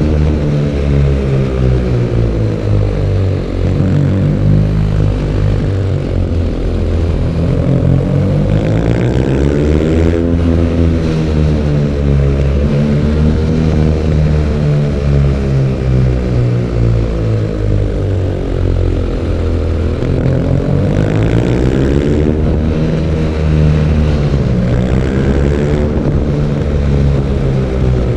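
BMW R nineT Urban G/S 1170 cc air/oil-cooled boxer twin on its stock exhaust, riding under load. The engine note climbs and drops several times as the throttle is opened and rolled off.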